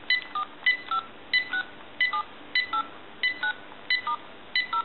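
Touch-tone (DTMF) dialing from a GE Cordless 6.0 handset as a string of digits is keyed in one after another. The digits come about one and a half a second, each a short beep followed by a brief two-tone pair at its own pitch.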